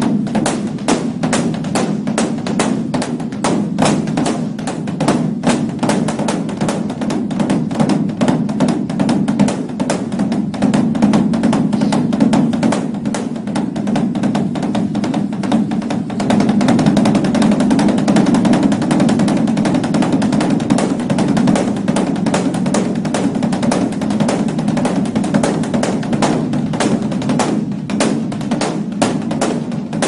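Large Korean Buddhist dharma drum (beopgo) beaten rapidly with drumsticks: a fast, unbroken stream of strokes over a deep, steady boom. About halfway through, the strokes merge into a louder, denser roll, then separate into distinct strokes again near the end. This is the temple's dawn drumming, which opens the morning service.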